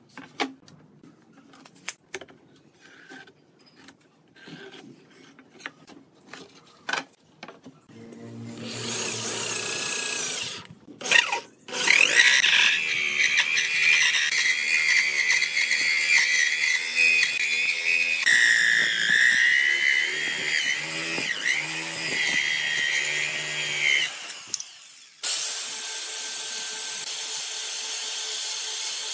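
Light knocks and taps of boards being handled, then an electric drill with a hole saw starts up and cuts a round hole through pine pallet boards, a loud steady grinding whine with a high squeal. A few seconds before the end a small electric grinder with a sanding drum starts and runs steadily, sanding the edge of the hole.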